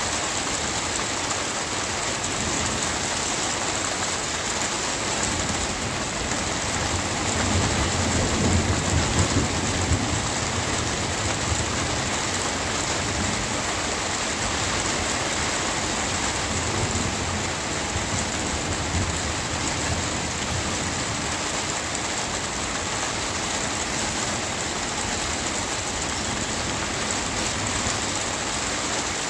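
Steady rain pattering down, with a low rumble of thunder that builds and dies away about a quarter of the way through.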